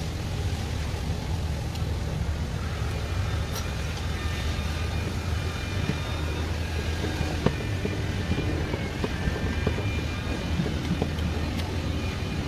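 A steady low engine hum, with a few faint sharp clicks.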